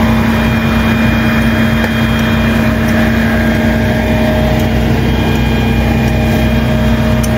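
A motor running steadily, an even hum with one strong unchanging tone.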